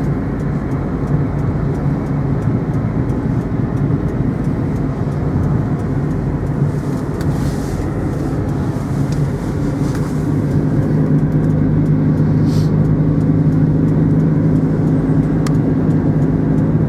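Engine and road noise of a car on the move, heard from inside: a steady hum with a low engine note that grows a little louder and steadier about ten seconds in.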